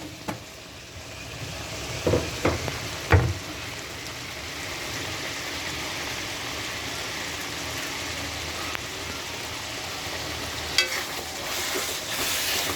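Chicken liver frying in oil in a kadai, a steady sizzle, with a spoon knocking against the pan three times about two to three seconds in and once more near the end, as the just-added chilli powder is stirred in.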